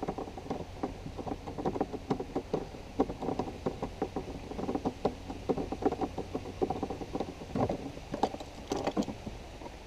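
Torx screwdriver undoing a T30 bolt in a car door, giving a steady run of rapid small clicks and ticks as the tool turns, with a few louder clicks near the end.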